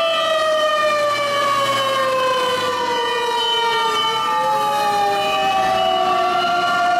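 Mechanical motor sirens of Japanese fire pump engines on an emergency run, at least two sounding together. Each slowly winds down in pitch and spins back up, so their wails cross over each other.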